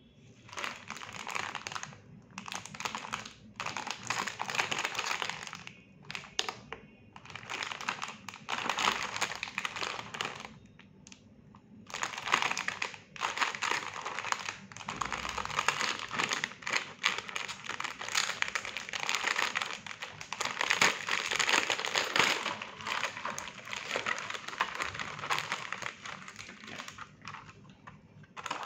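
Crinkling of a plastic pineapple cream biscuit wrapper as it is handled and opened by hand. The crinkling comes in several long bursts with short pauses between them, and the clear plastic tray of biscuits rustles as it is pulled out.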